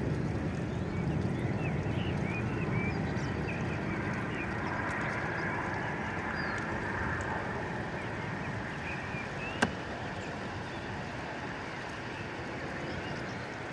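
Outdoor ambience of wind rumbling on the microphone, with small birds chirping, and a single sharp click about ten seconds in.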